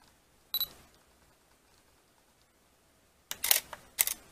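Canon EOS Rebel SL1 DSLR taking a picture: a short high electronic focus-confirmation beep about half a second in, then near the end the shutter and mirror clacking, a quick cluster of clicks followed by one more sharp click about half a second later.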